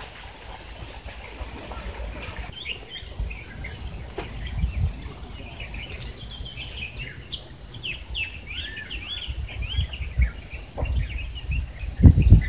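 Small birds chirping in quick, varied calls over a steady high hiss and low rumble, with a loud thump near the end.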